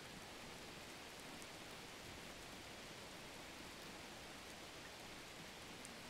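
Faint, steady sizzle of vegetables and noodles frying in a nonstick pan, with a couple of tiny pops.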